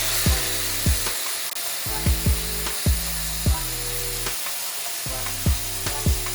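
A power tool running steadily with a harsh, hissing grinding or cutting noise, under background music with a regular electronic drum beat.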